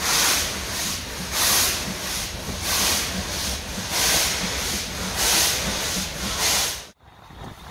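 Steam locomotive working hard, heard from a carriage behind it: steady exhaust chuffs with hissing steam, strong beats about every second and a quarter with weaker ones between. The sound cuts off abruptly near the end.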